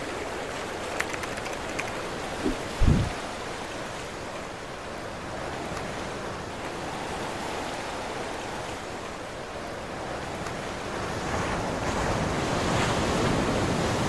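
Steady rush of water, with wind buffeting the microphone. There are a couple of low thumps about three seconds in, and the rush grows a little louder near the end.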